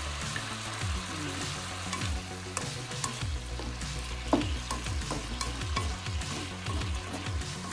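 Pork and chicken pieces sizzling in oil in a nonstick wok as they brown. A plastic spatula stirs them, with scattered scrapes and light taps against the pan.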